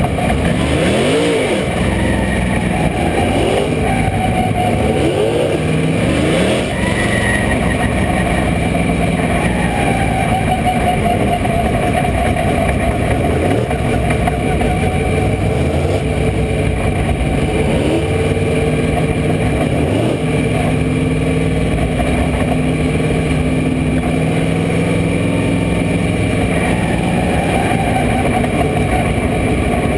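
Dirt-track race car engine heard from inside the cockpit at racing speed, its pitch repeatedly falling and rising as the throttle comes off and goes back on, with other race cars' engines close by.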